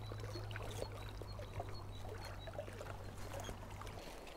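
Small splashes and trickles of stream water, with a steady low hum that stops near the end.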